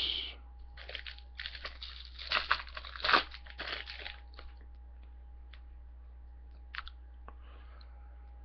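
Crinkling and tearing of a foil trading-card pack wrapper as it is ripped open, in a flurry of crackles for about three seconds, followed by a few light clicks as the cards are handled.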